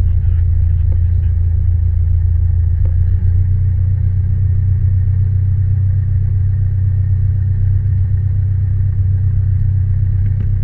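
Piper PA-28 Warrior's four-cylinder Lycoming engine and propeller running with a steady low drone, heard from inside the cabin.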